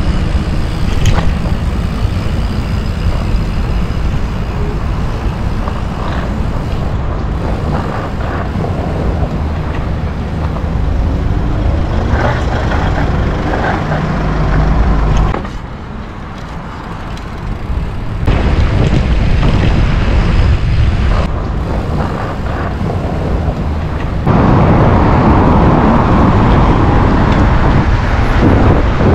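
Wind rushing over an action camera's microphone and bike tyres rolling on tarmac during a fast downhill ride. The rush drops for a couple of seconds around the middle and turns louder again over the last few seconds.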